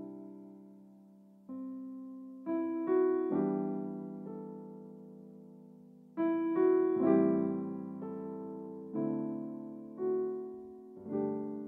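Slow piano music: chords struck one after another, every second or two, each left to ring and fade away.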